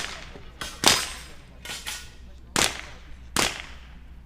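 .22LR rifle shots fired at an irregular pace: about four loud, sharp cracks, each with a short echo, and a few fainter cracks between them.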